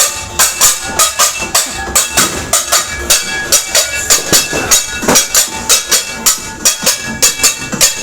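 Metal pots and pans being banged rapidly, about four clanging strikes a second, each with a short metallic ring, as New Year's noisemaking.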